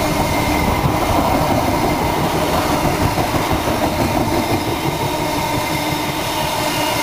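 Loco-hauled intercity train of Mark 3 coaches rolling past, running under caution: a steady rumble of wheels on the rails with a light clickety-clack and a faint steady hum.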